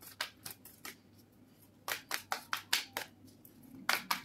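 Tarot cards being shuffled by hand: quick runs of sharp card slaps, about five or six a second, in three bursts with short pauses between.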